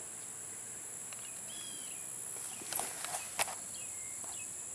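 Steady, high-pitched insect drone, with a few short, faint bird chirps and several light clicks near the middle.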